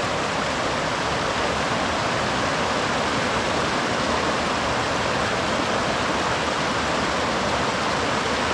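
Mountain river rushing over boulders and small cascades: a steady, unbroken rush of white water.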